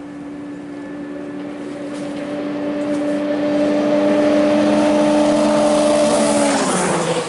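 Ski-Doo 850 two-stroke snowmobile at full throttle on a speed run. Its steady engine note grows louder as it approaches, then drops sharply in pitch as it passes near the end.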